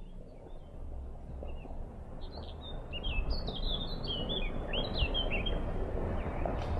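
Small songbirds chirping and twittering in quick high phrases, busiest in the middle, over a low rumble that grows steadily louder.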